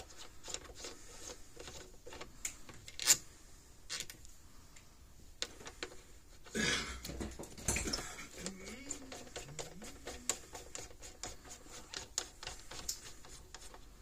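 Light, irregular clicking and scraping of plastic terminal knobs and nuts being turned on the threaded studs of an old plastic-cased Gallagher fence energizer, with one sharper click about three seconds in and a brief rustle about seven seconds in.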